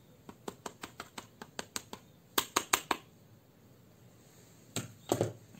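Red plastic sieve of ground almonds being tapped and shaken to sift the fine powder onto the flour, holding back the coarser bits: a run of sharp light taps about five a second, a few louder ones around the middle, then a short flurry of taps near the end.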